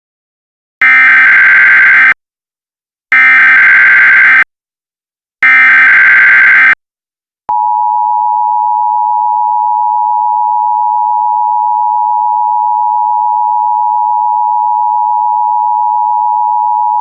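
Emergency Alert System header: three identical bursts of SAME data tones, each a little over a second long, then about seven and a half seconds in the steady two-tone EAS attention signal starts and holds. Together they mark the start of a new emergency alert broadcast.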